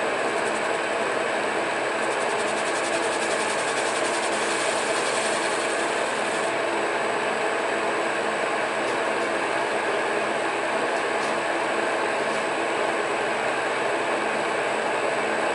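Monarch engine lathe running steadily with a hum of several steady tones, while a threading tool cuts a groove in a shotgun choke, adding a fine, rapid high ticking for the first six seconds or so.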